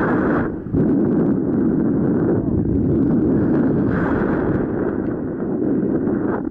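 Airflow buffeting the camera's microphone on a paraglider in flight: a loud, steady rumbling rush. It briefly drops about a second in and turns hissier near the start and again about four seconds in.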